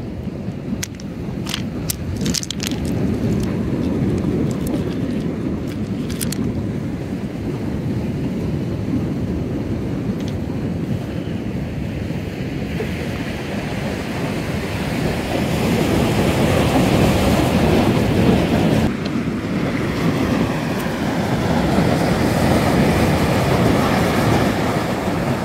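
Wind rumbling on the microphone, with waves washing onto a stony shore that grow louder from about halfway through. A few sharp clicks come in the first few seconds.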